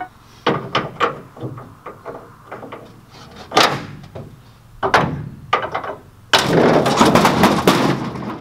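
Hand tool striking and working steel pins on a truck flatbed's mountings. It makes irregular metal clanks and knocks, then a dense run of rapid clattering for about two seconds near the end.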